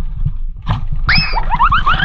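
Low rumbling noise from movement and wind on the microphone, then about a second in an edited-in cartoon-style sound effect: a quick run of short rising whistle-like chirps.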